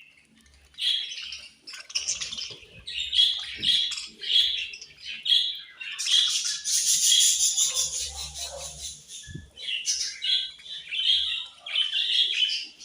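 Budgies chirping and chattering: a dense run of quick, shrill chirps and warbles, loudest and busiest about halfway through.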